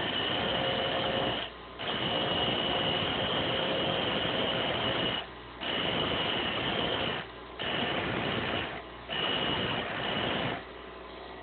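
Bench grinder wheel grinding steel lock pick blanks, with a steady high whine while the metal is pressed to the wheel. It breaks off briefly four times as the blanks are lifted away, and stops near the end, leaving the grinder motor running quietly.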